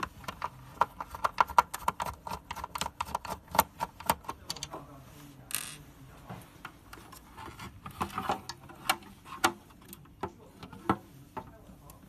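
Small plastic and metal parts of an opened tankless water heater clicking and rattling as it is taken apart by hand. The clicks come fast for the first few seconds, a short scrape follows about five and a half seconds in, and then there are scattered clicks and knocks.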